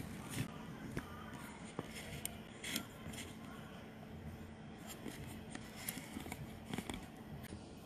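Light, scattered clicks and knocks of a phone and its stand being handled and repositioned, over a faint steady hum.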